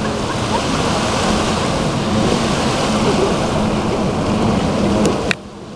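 Small waves washing on a sandy beach, with wind on the microphone and a low hum of boat engines offshore. A click comes about five seconds in, and the sound drops sharply for a moment after it.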